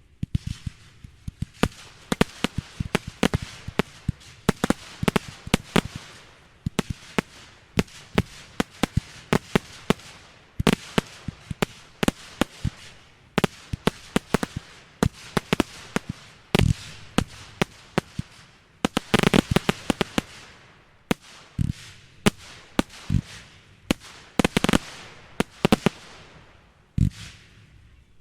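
Fireworks display: a rapid, unbroken series of sharp bangs and crackles from bursting shells, thickening into a dense flurry about nineteen seconds in.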